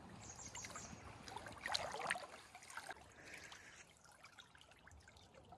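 Shallow creek water trickling over stones, with a brief louder splash about two seconds in.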